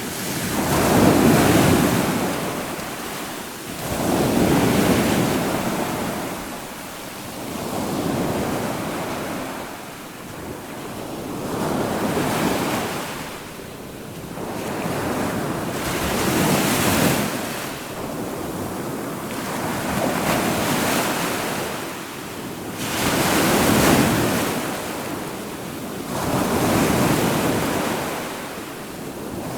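Ocean surf: waves breaking and washing in, a rushing noise that swells and fades about every three to four seconds.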